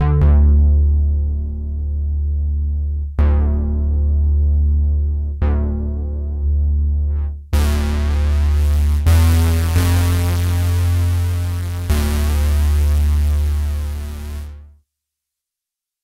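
Roland Jupiter-4 software synthesizer playing a bass preset: long held low notes, each opening with a bright filter sweep that quickly dulls. About halfway through the tone turns brighter and buzzier for a few more notes, then fades out shortly before the end.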